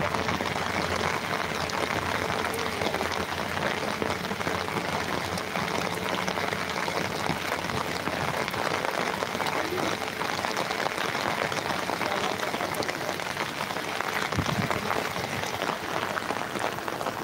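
Steady rain falling, an even, dense hiss of drops.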